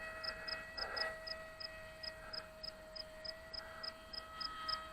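Electric motor of an RC model aircraft running at a steady throttle, heard faintly as a steady whine, with faint regular ticks about three times a second.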